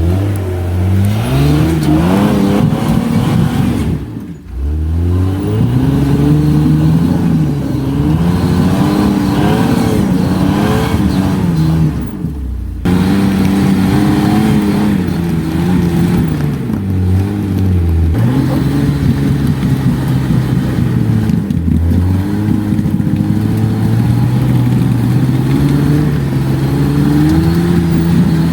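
Jeep engine revving up and down repeatedly under load while crawling over off-road obstacles, with two brief breaks in the sound.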